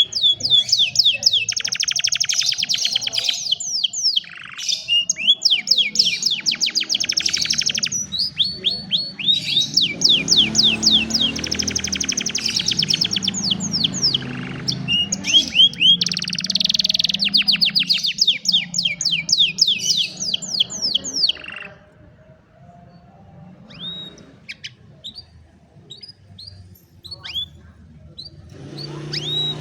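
Domestic canary singing a long song of very fast trilled rolls, phrase after phrase. About 22 seconds in the song stops, leaving a few scattered single chirps, and the trills start again near the end.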